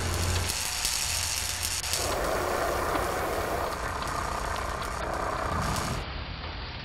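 Fizzing, crackling hiss of showering sparks over a low steady hum, the hiss changing character about two seconds in.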